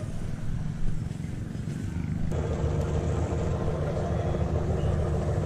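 An engine running steadily at low revs, a low hum that grows louder and takes on a steady tone about two seconds in.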